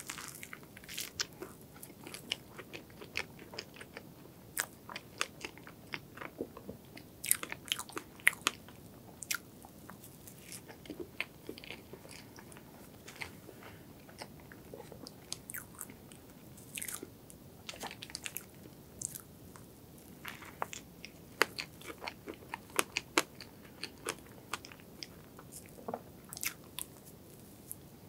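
Close-up eating sounds of a person biting and chewing a soft strawberry cream 'omelet', a sponge cake folded around whipped cream. Many short, sharp mouth clicks and smacks come at an irregular pace.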